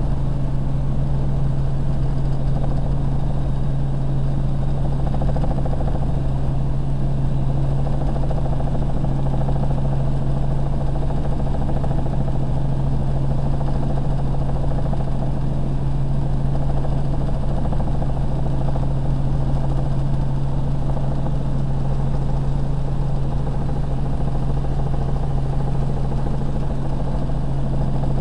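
Helicopter in level flight heard from inside the cabin: an even drone of turbine and rotor with a strong low hum held at one pitch.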